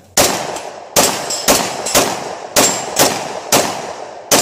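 Glock 20 pistol firing full-power 10mm Auto rounds: eight loud, sharp shots in quick succession, roughly half a second apart, each fading quickly.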